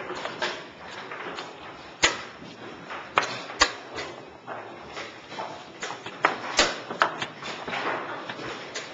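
A handful of sharp knocks and clacks at irregular intervals over a low room murmur.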